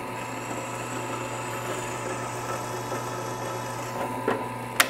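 Drill press running with a resharpened twist bit pressed into aluminum, rubbing rather than cutting because the point is not grabbing; the speaker thinks the bit was ground too shallow. A sharp click comes near the end, and the running sound drops away after it.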